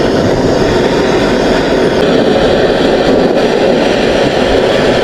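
Handheld butane blowtorch flame running with a steady rushing noise as it heats the steel tubes of a bicycle frame.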